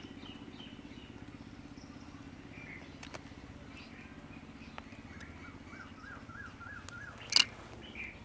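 Outdoor ambience of small birds chirping, with one bird giving a quick run of about six repeated notes, over a steady low hum. A single sharp click stands out about seven seconds in.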